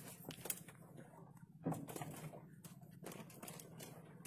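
Faint scattered clicks and knocks over a low steady hum, the loudest knock about a second and a half in.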